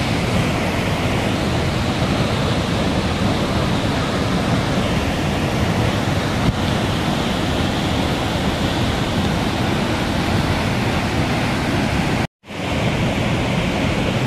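Waterfall in flash flood, a torrent of muddy water rushing steadily over rocks. The sound cuts out for a split second about twelve seconds in, then comes back.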